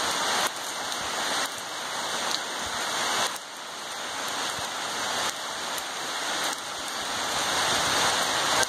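Steady rain falling on wet concrete and ground, an even hiss.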